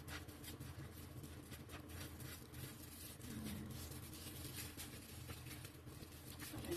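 A table knife spreading mustard on a slice of bread: a run of faint, short scrapes over a low steady hum.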